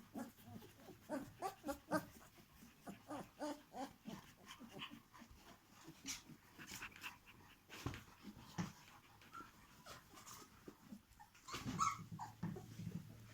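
Litter of 17-day-old puppies whimpering and squeaking softly, among many small clicks and rustles, with a louder cluster of squeaks near the end.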